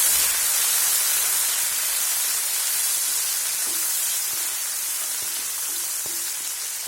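Chopped tomatoes sizzling in hot oil in a pan, a steady hiss that slowly dies down as they fry. From about halfway on, a spoon knocks lightly against the pan several times as they are stirred.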